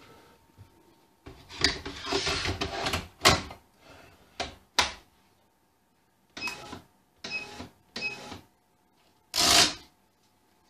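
Digi SM-5100 scale's hinged keypad panel being swung shut, clattering and clicking into place about a second in. Then three short beeping key presses on its keypad a second or so apart, and a brief loud burst near the end.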